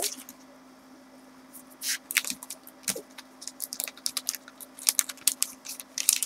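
Paper and packaging rustling and crinkling as they are handled, a run of quick crackles starting about a second and a half in, over a faint steady low hum.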